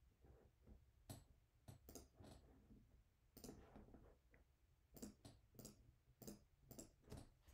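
Faint, irregular clicks of a computer mouse and keyboard, about a dozen spread over several seconds.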